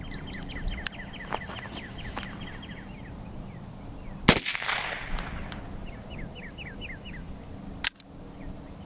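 A single shot from a Type 14 Nambu pistol firing 8mm Nambu about four seconds in. An echo trails off over about a second.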